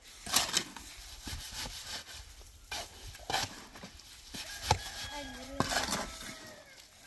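A run of sharp, irregular knocks and clatters, with a short wavering pitched sound about five seconds in.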